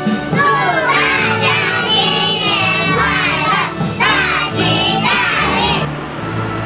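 A group of young children calling out together in high voices, in two phrases with a short break between, over steady background music. The voices stop shortly before the end.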